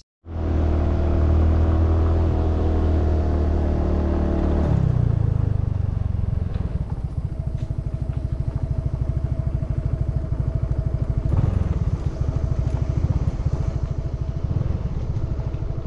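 Motorcycle engine running under way, picked up close from a bike-mounted camera. About five seconds in its pitch drops, and it settles into a steady, lower running.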